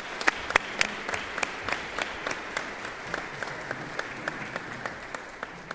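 Audience applauding: many hands clapping, with a few sharp individual claps standing out. The clapping thins and dies away near the end.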